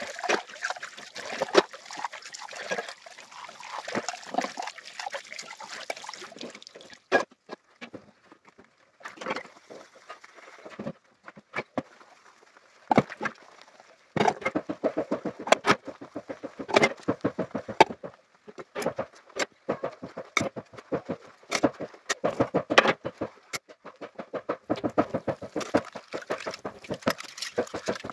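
Water running from a tap and splashing for the first few seconds, then an irregular series of knocks and clatters as things are handled and washed.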